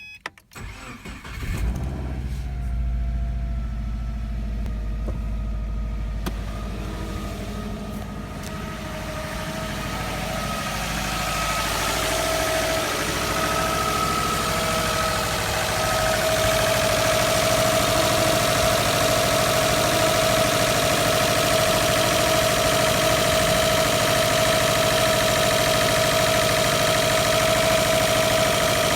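2009 Subaru WRX's turbocharged flat-four engine starting about a second in, then running with a rod knock from a failed crank bearing, the result of the engine being run low on oil. The running grows louder and brighter over the first quarter-minute, then holds steady with a whine on top.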